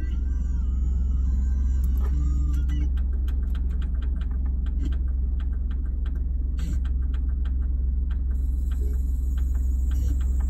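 Low, steady rumble of a car idling, heard from inside the cabin. From about three seconds in, an even run of light ticks sounds over it.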